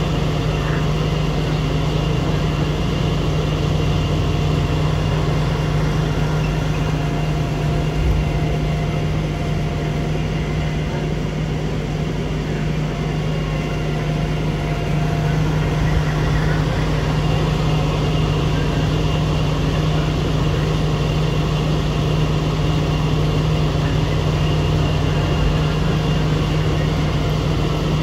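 Fire engine running steadily: a constant low drone with a faint high whine over it.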